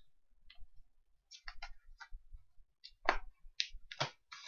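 A string of faint, irregular clicks and light taps, about a dozen of them, with the sharpest ones in the second half.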